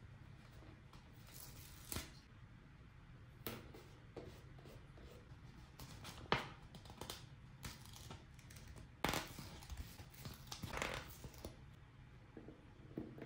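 Toy packaging and small plastic toy pieces being handled: scattered sharp clicks and taps, with a longer spell of rustling noise about nine to eleven seconds in.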